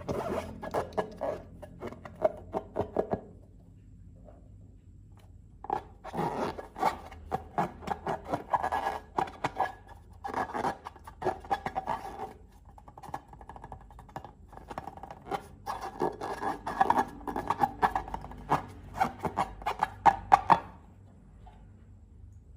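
Slime being squished and worked by hand, with dense sticky clicks and crackles in long bursts, broken by a pause a few seconds in.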